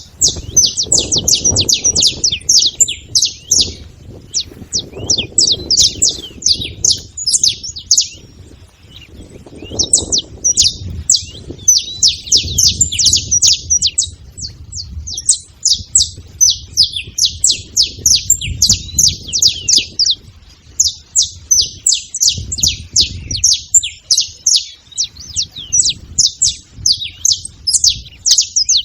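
Several saffron finches chirping together in a fast, busy stream of high notes, dropping off briefly twice before starting again, over a faint low rumble.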